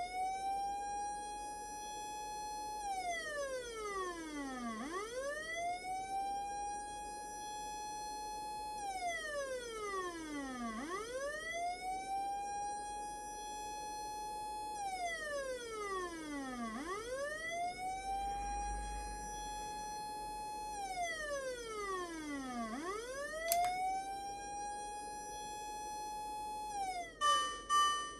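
Osaka Siren MK-11 electronic siren wailing through its newly connected loudspeaker: each cycle rises quickly, holds high for about two seconds, then slides steadily down, repeating about every six seconds. Near the end it switches briefly to a steady tone.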